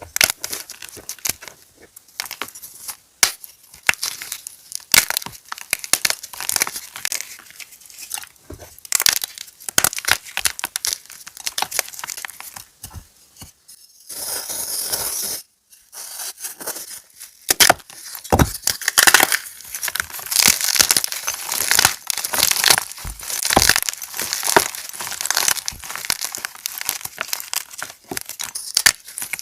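Fresh gym chalk pebbles being crushed close to the microphone: a dense run of crisp, crackling crunches. A little past halfway the crackling gives way briefly to a steady grainy hiss of crumbling chalk before the crunching resumes.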